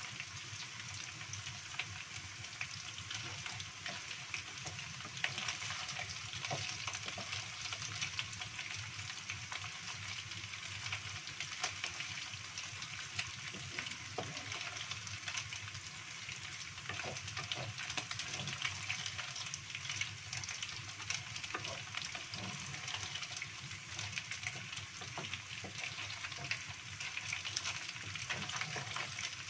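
Dried anchovies and egg deep-frying in hot oil in a wok, sizzling steadily, with scattered ticks and scrapes as a wooden spatula stirs them.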